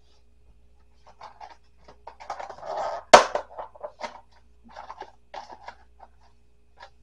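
Rustling and light crackling of fresh herbs being handled as leaves are picked from their stems, with a sharp knock about three seconds in.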